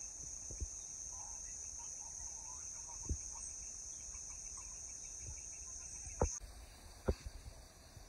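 Chickens clucking faintly over a steady high-pitched hum that cuts off suddenly about six seconds in, with a few sharp knocks.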